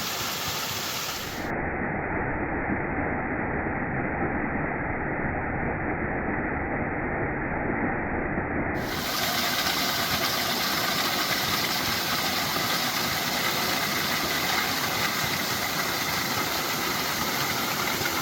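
Steady rushing roar of Mill Creek Falls, a waterfall, heard close up. For several seconds early on the sound turns duller, its hiss cut away, before the full rush returns.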